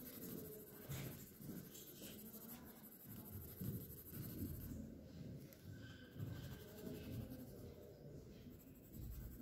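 Pencil lead scratching on sketchbook paper in faint, irregular shading strokes.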